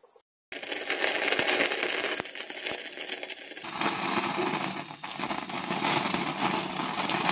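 Gas stove burner flame hissing, with many small crackles as a plucked duck's skin and leftover feather stubs are singed in it. The sound starts about half a second in.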